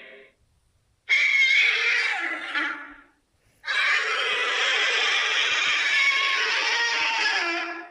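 Creature vocal sound effects: a call of about two seconds starting about a second in, then after a short gap a longer, rough call of about four seconds that cuts off near the end.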